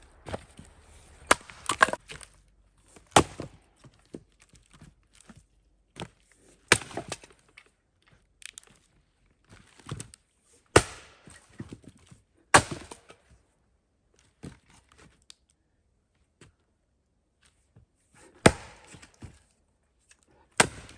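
Sharp knocks of a tool striking wood, about eight loud ones at irregular spacing, with softer knocks and handling noise between them.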